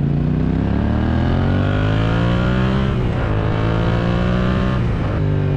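Yamaha MT-07's parallel-twin engine running through an Akrapovič full-system exhaust under acceleration, heard from on board the moving bike. The revs climb, then drop briefly about three and five seconds in at the upshifts. The bike is running on the stock ECU with no fuel tune for the free-flowing exhaust.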